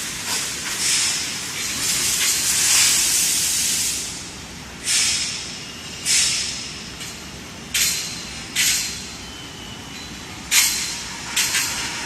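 Pressurised gas hissing from tube-processing machinery: a steady hiss for the first few seconds, then six short bursts, each starting suddenly and fading within about half a second, over a low machine rumble.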